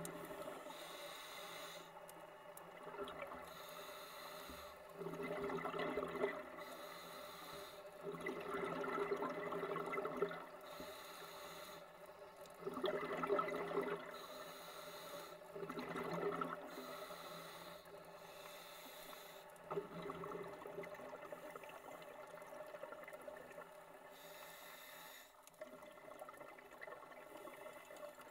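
Scuba diver breathing through a regulator underwater: exhaled bubbles gurgle out in bursts every three to four seconds, over a steady faint hiss.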